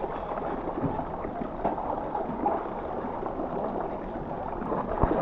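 Pool water gurgling and lapping right at the microphone, a steady wash of noise, with a single small knock near the end.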